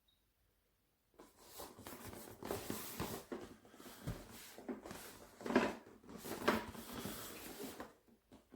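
Irregular rustling and scraping that starts about a second in and goes on for several seconds, rising and falling in loudness, with a few separate knocks near the end.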